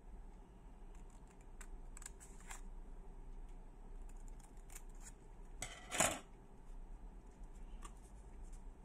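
Scissors cutting a corner off a square of sticky-note paper: a scatter of light snips from the blades, with the loudest cut about six seconds in.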